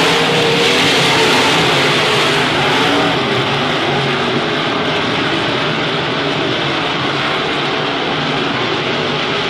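Several IMCA Modified dirt-track race cars' V8 engines running hard together on the track, one dense steady engine noise; the level drops slightly about three seconds in.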